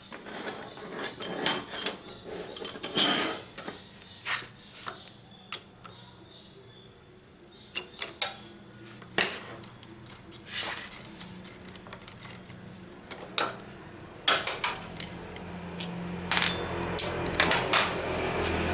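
Metal hand tools and scooter engine parts clinking and knocking at irregular intervals as the engine cover is unbolted and taken apart, with a few sharp metallic rings near the end.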